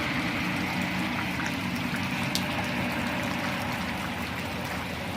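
Steady rain falling, with scattered small drip ticks and a faint low hum underneath.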